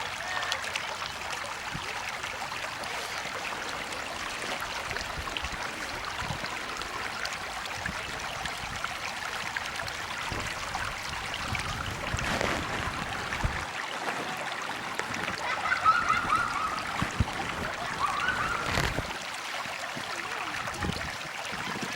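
River or stream water running steadily over rocks, a continuous rushing and trickling, a little louder about two-thirds of the way in.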